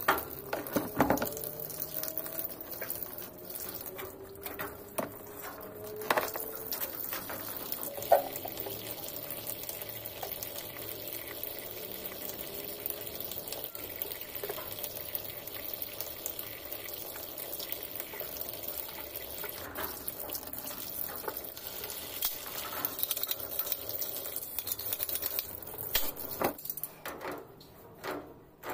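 Water running steadily from a tap, with scattered clicks and knocks and a brief whine shifting in pitch in the first seconds.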